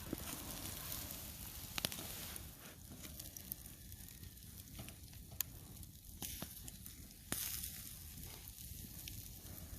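Chicken sizzling on a grate over campfire coals, a steady hiss with a few sharp pops from the fire.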